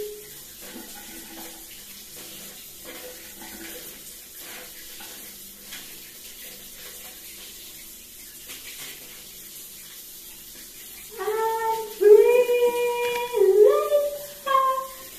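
Shower spray running steadily. About eleven seconds in, a woman starts singing loudly in held notes that step up and down over the running water.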